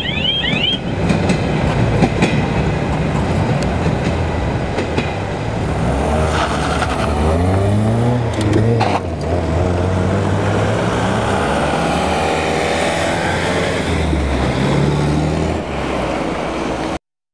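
Freight wagons rolling away with a brief wheel squeal at the start, then a car driving past close by, its engine accelerating with the pitch climbing, levelling off, then climbing again near the end. The sound cuts off suddenly just before the end.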